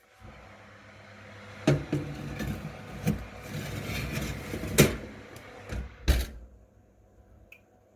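Oven being loaded: a steady rushing noise while the oven is open, with clanks of a baking tray going in, ending in a double thump of the oven door shutting about six seconds in.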